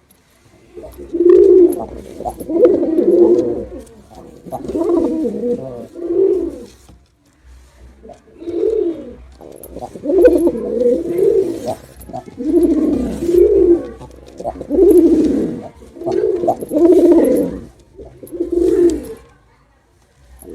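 Male pigeon cooing: a run of about ten low coo phrases, each half a second to a second and a half long, with short pauses between them.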